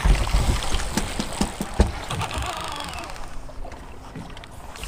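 Wind on the microphone and water sloshing against the hull of a drifting boat, with a couple of sharp knocks, the loudest about two seconds in.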